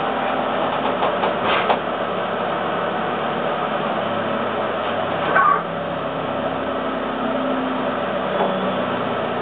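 Steady mechanical hum inside the passenger cabin of an ex-Kintetsu 16000 series electric train, with faint steady tones and a brief louder sound about five seconds in.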